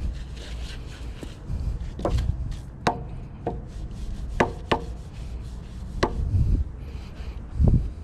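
Stiff-bristled plastic scrub brush scrubbing the wet steel deck and caster wheel of a zero-turn mower, with the bristles rasping and the brush knocking sharply against the metal about five times.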